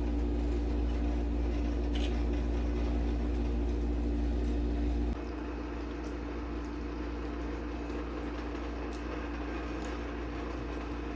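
Faint clicks of chopsticks against a bowl during quiet eating, over a steady low hum that drops in level about five seconds in.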